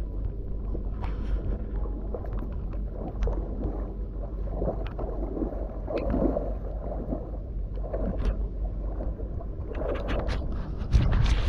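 Wind buffeting the microphone with a steady low rumble, over rustling of tall grass and sloshing of shallow water as someone moves along a flooded bank. A louder burst of rustle and splash comes just before the end.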